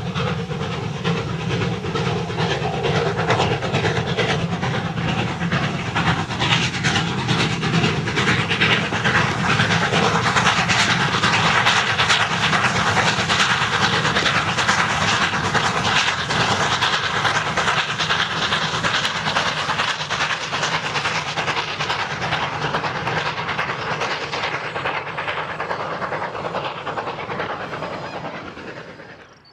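Steam locomotives 30.33 and 93.1420 double-heading a passenger train as it runs past, with a steady hiss of steam and a rapid clatter. The sound builds to its loudest about halfway through, then fades and cuts off just before the end.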